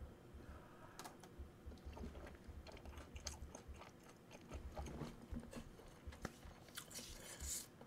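Faint close-up chewing of chewy tteokbokki rice cakes in spicy sauce, with soft wet mouth clicks.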